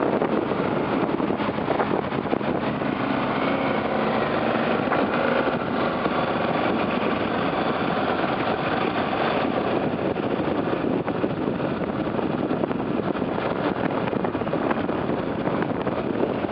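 Motorcycle engine running steadily, mixed with steady rushing noise, with a faint engine tone standing out from about two to ten seconds in.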